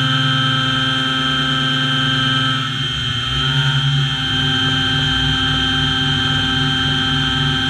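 Modified OpenBuilds MiniMill CNC spindle whining steadily as its end mill cuts aluminum, the table feeding the part past the cutter. From about three seconds in, a low pulsing vibration comes and goes; this is the chatter of a cut too aggressive for the machine, which leaves striations in the finish.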